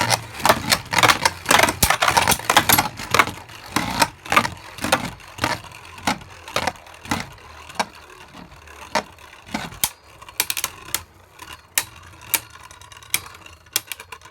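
Two Beyblade Burst tops, Hydra Poseidon and Prominence Phoenix, spinning and clashing in a stadium. A rapid clatter of sharp clicks and knocks thins out to about two hits a second as they slow.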